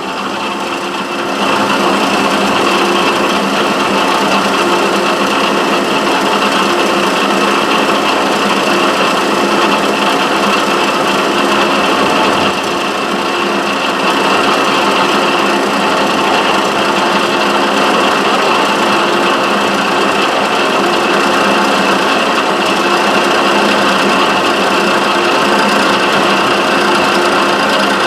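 Milling machine running with an end mill cutting a slot in a Delrin block: a steady motor hum and cutting noise that comes up about a second and a half in and then holds.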